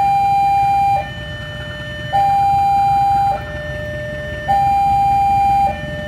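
Electronic two-tone warning alarm sounding a steady hi-lo pattern, switching pitch about every 1.2 seconds, with the higher tone louder.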